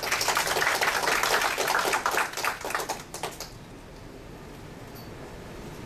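Small audience clapping: a thin scattering of hand claps that dies away about three and a half seconds in, leaving quiet room tone.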